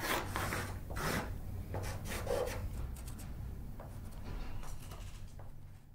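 Pastel pencil scratching across a gesso-primed canvas board in separate sketching strokes, growing fainter and fading out near the end.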